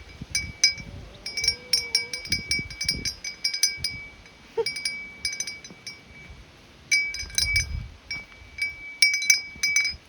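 Small metal pieces clinking together and ringing in a high, bell-like tone, coming in irregular clusters of quick jingles with short pauses between them.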